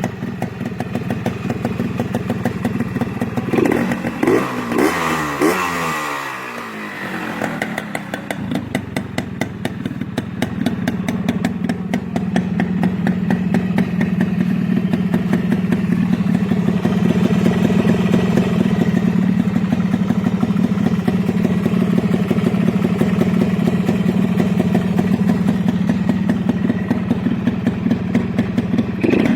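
Yamaha two-stroke motorcycle engine blipped a few times, its pitch rising and falling a few seconds in, then running steadily with a fast, even beat.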